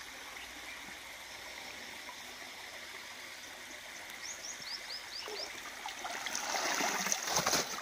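Low flow of a shallow stream, then water splashing and pouring off a wire-mesh crab trap as it is lifted out of the water, loudest about six seconds in. A few short high chirps sound near the middle.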